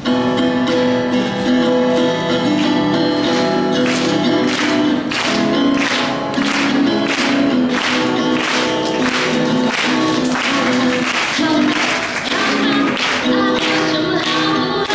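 Backing track of a Mandarin pop ballad playing with a steady beat, in an instrumental stretch between sung lines.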